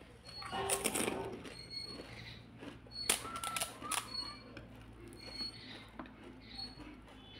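Crisp, hollow pani puri shells crackling and crunching as they are chewed and as fingers break holes in them. The crackles come in short bursts, the sharpest about a second in and again around three to four seconds in.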